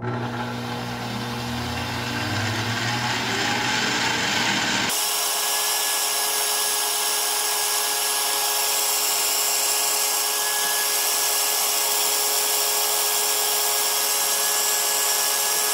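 Electric stand mixer running steadily, its wire whisk beating egg whites with cream of tartar in a stainless steel bowl: a constant motor whir with a steady whine. About five seconds in, the sound changes abruptly, the low hum dropping out and the whir getting brighter.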